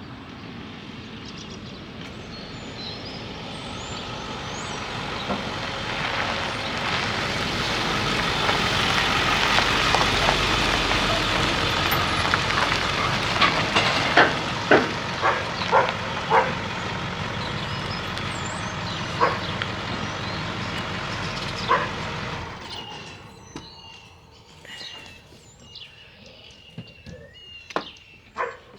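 A truck towing a trailer loaded with a backhoe drives in, its engine and tyre noise growing louder, with several sharp knocks and rattles from the load. The truck noise falls away about two-thirds of the way through, leaving birds chirping.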